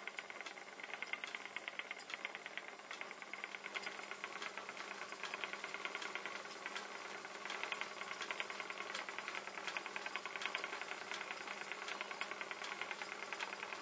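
Kromski Symphony spinning wheel running while merino wool is spun, its whirling flyer and bobbin giving a steady, rapid clicking rattle.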